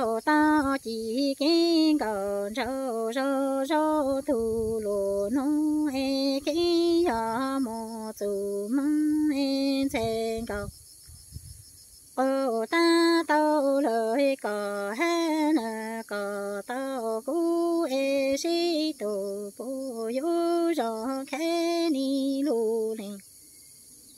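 A woman singing Hmong kwv txhiaj, unaccompanied sung poetry, here a lament of loneliness: long held notes in two phrases, each ending in a pause of about a second.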